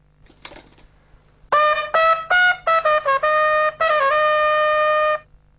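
Trumpet played solo in a short fanfare. From about a second and a half in come quick separate notes, then longer held notes, the last held for over a second before it cuts off.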